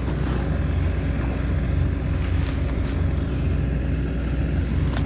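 Steady low motor hum with a faint steady tone running through it.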